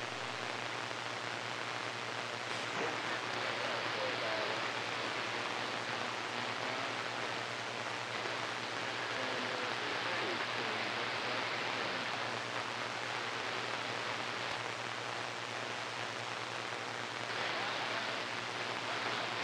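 CB radio receiver hiss and static on an open channel, steady throughout with a low hum under it. Faint, garbled distant voices come and go in the noise.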